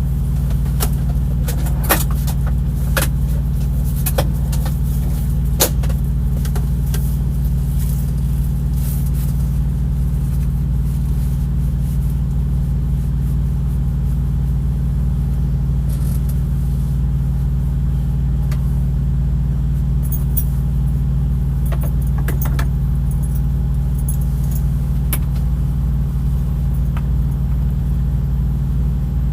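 Diesel truck engine idling with a steady low drone, with a few light clicks and rattles scattered over it.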